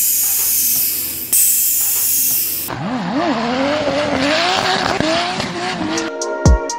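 Drift car sliding: tyres skidding with a loud hiss for the first few seconds, then the engine revving up and down in pitch. Music with heavy drum hits comes in near the end.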